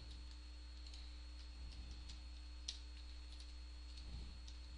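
Faint, scattered clicks of computer keys and mouse buttons being pressed, over a steady low hum.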